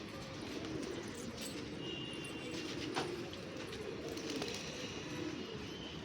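Pigeons cooing, many low calls overlapping into a continuous murmur, with a few short higher chirps and one sharp click about halfway through.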